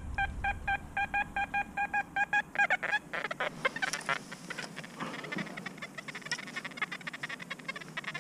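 Metal detector beeping on a buried target: an even electronic beep about four times a second, turning after two and a half seconds into a faster, rougher chirping with scratchy clicks.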